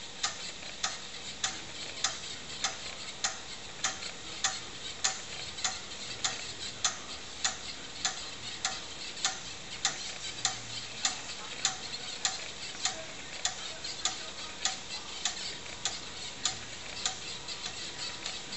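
Floppy disk drive ticking as its head steps from track to track during the verify pass of a disk format, a regular click a little under twice a second.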